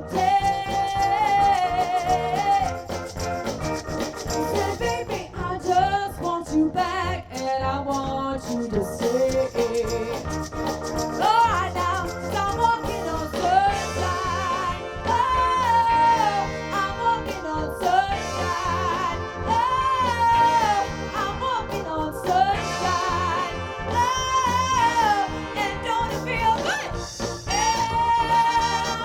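Live soul band playing an upbeat song: drums, bass, guitar and keyboard under a horn section, with a melody line that is sung or played.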